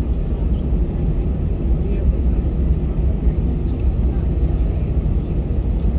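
Steady low rumble inside the cabin of an Airbus A320-214, from its CFM56 engines running on the ground, with no rise in power.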